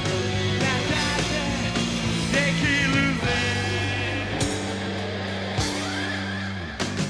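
Rock band playing: a male singer's held, wavering vocal notes over sustained electric guitar chords and bass, with drum hits near the end.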